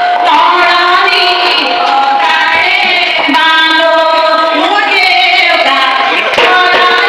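A group of women singing a folk song together over a PA system, in long, wavering melodic lines.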